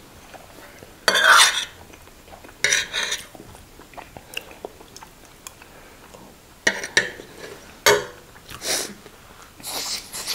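Metal spoons clinking and scraping against ceramic dinner plates during a meal, in several short scrapes with small clicks between them.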